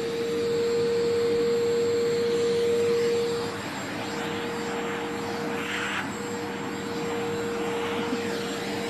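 Vacuum cleaner motor running steadily with a high whine over its rushing hiss. It eases off a little about three and a half seconds in.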